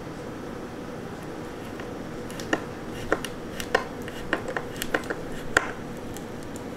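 Small sharp metallic clicks as a screw is turned by hand into the edge of a laminated particleboard furniture panel with a small hand tool: about ten irregular clicks over some three seconds, the last the loudest.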